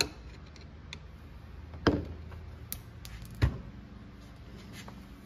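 Hand tools and chainsaw parts knocking and clicking as they are handled on a workbench: three louder knocks, near the start, about two seconds in and about three and a half seconds in, with a few faint clicks, over a steady low hum.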